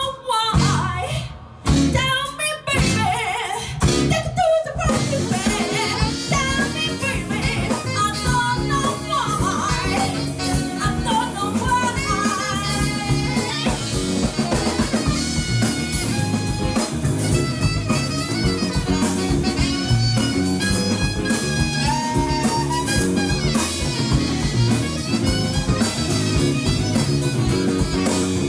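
A live band playing blues-style rock: a few sharp full-band hits with short gaps between them in the first five seconds, then the band playing on continuously with drum kit and guitar.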